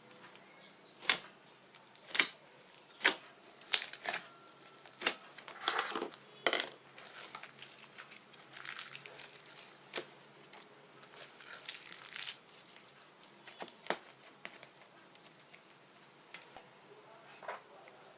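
Fluffy slime being squeezed and stretched by hand, giving sharp pops about once a second, then two short stretches of softer crackling and a few more scattered pops.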